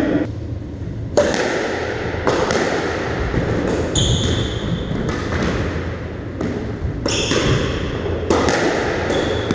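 Squash rally: sharp knocks of racket on ball and ball off the walls, coming irregularly about once or twice a second and echoing around the court. Shoes squeak on the wooden floor twice, about four and seven seconds in.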